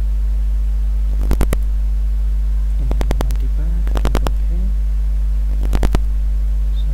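Loud steady low electrical hum picked up by a faulty microphone, with clusters of short computer-mouse clicks four times as dialog buttons are pressed.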